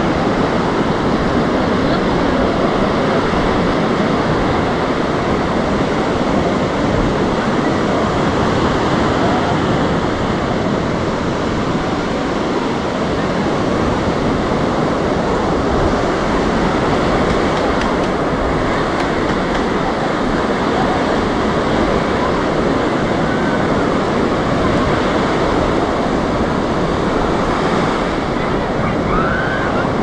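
Waves washing onto a sandy beach, a steady rush of surf.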